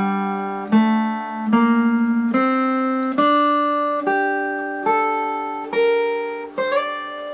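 Acoustic guitar in standard tuning with a capo at the fifth fret, picking a mandolin solo melody slowly, one note at a time, about one note a second, with open strings left ringing underneath. It ends with a slide up on the top E string.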